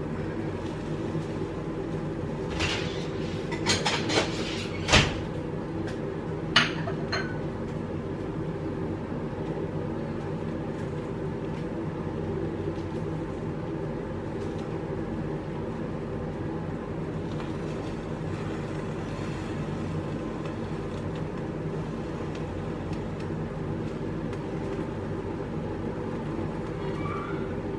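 Steady low machine hum, with several sharp clicks and knocks between about two and seven seconds in.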